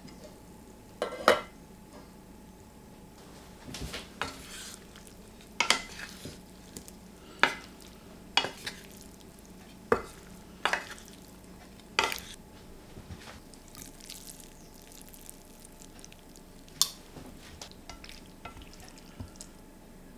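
A utensil stirring beef and vegetables in a stainless steel sauté pan, with irregular sharp clinks and scrapes against the pan every second or two.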